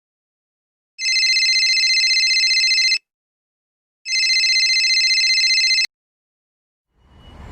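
Telephone ringing twice, each ring a warbling electronic tone of about two seconds, a second apart; the second ring is cut off by a click.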